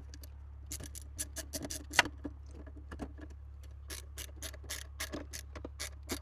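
An Allen key turning in a bolt head, tightening a fastener snug: a run of short metal clicks and scrapes, a few a second, with a louder click about two seconds in, over a steady low hum.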